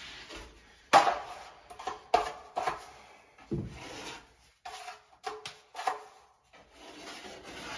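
Metal taping knife working all-purpose joint compound: short scrapes and knocks as the blade is loaded and scraped on the mud pan and drawn across the drywall joint, about seven strokes roughly a second apart.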